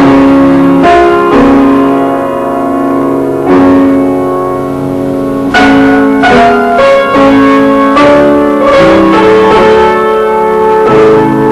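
Piano being played: held chords and notes, with fresh strikes about three and a half and five and a half seconds in, then a busier run of notes.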